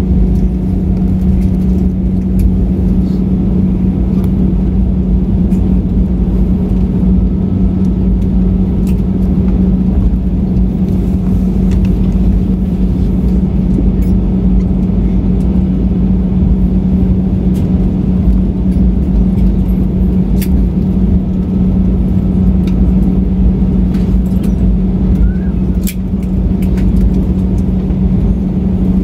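Cabin noise inside an Airbus A320 rolling on the ground just after landing, ground spoilers still raised: a steady low drone over a deep rumble from the engines and wheels. A few faint clicks and rattles come through.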